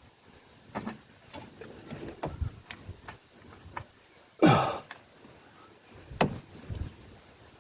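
Scattered light clicks and knocks, a few a second apart, from hand tools working on the steering-wheel puller.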